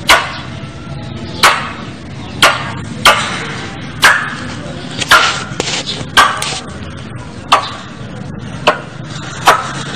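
Squirrel giving its call as a lure recording: short, sharp calls repeated irregularly about once a second over a steady background hiss.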